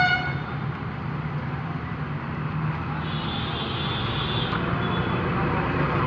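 Steady street traffic noise with vehicle engines running. A horn toot cuts off about a quarter second in.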